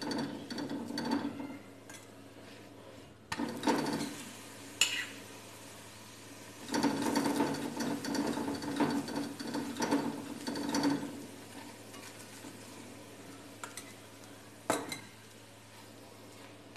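Steel spoon scraping and pressing a paratha against a tawa in bursts of quick strokes, the longest lasting about four seconds, with two sharp clinks of metal on the pan. This is the paratha being pressed down as it fries to crisp it golden.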